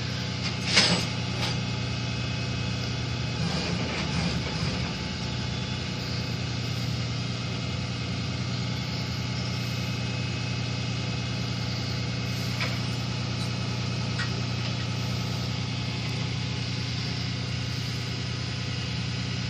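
Flatbed tow truck's engine idling with a steady low hum, with a couple of faint clicks about two-thirds of the way through.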